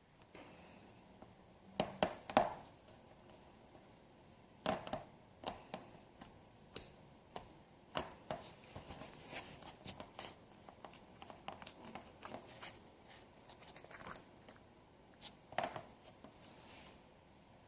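Hands squeezing and poking slime, making irregular sticky pops and clicks, the loudest cluster about two seconds in.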